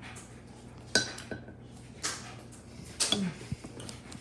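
Metal spoon clinking and scraping against a ceramic mug as cake is scooped out, a sharp clink about once a second.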